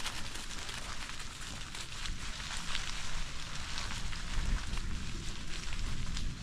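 Bicycle tyres rolling over dry fallen leaves on a dirt trail, a steady crackling crunch with many small clicks, over a low rumble.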